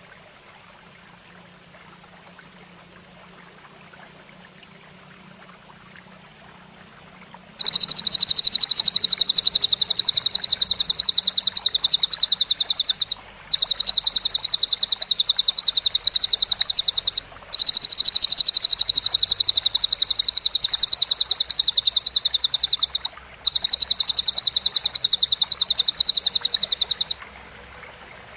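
A loud, high, very rapidly and evenly pulsed trill, a training call for songbirds, starts abruptly about eight seconds in. It runs in four long bouts separated by brief gaps and cuts off shortly before the end. A faint running-water hiss lies under it throughout.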